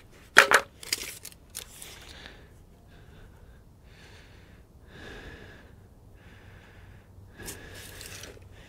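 Two sharp knocks about half a second in, then a few lighter clicks and taps of handling on the coop's window work, followed by several slow, breathy exhales and sighs from a man.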